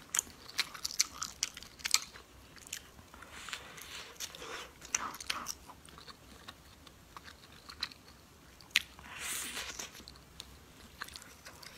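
Close-miked eating: a person biting and chewing food from a bowl of spicy noodle soup, with many small wet clicks and smacks. There are two longer hissing stretches, one around the middle and one near the end.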